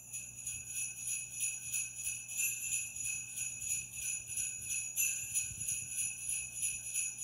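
Jingle bells shaken in a steady rhythm, about four shakes a second, starting suddenly.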